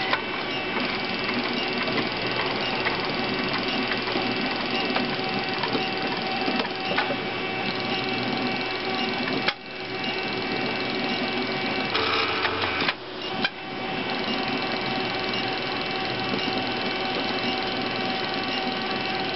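Stepper motors of a homemade CNC coil winder running, turning the spindle to wind string while the traverse table runs back and forth. A steady machine whine with several fixed tones, dipping briefly near the middle and again about two-thirds through.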